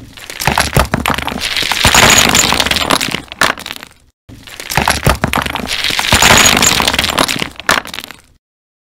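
Sound effect of a wall cracking and crumbling apart: sharp cracks over a dense clatter of breaking debris. It plays twice in a row, each pass about four seconds long.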